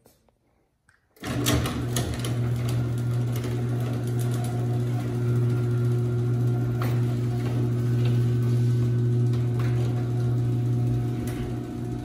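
A 1/2 HP ceiling-mounted garage door opener starts about a second in and runs steadily, closing the sectional door. It gives a low motor hum with scattered light clicks from the trolley and door hardware.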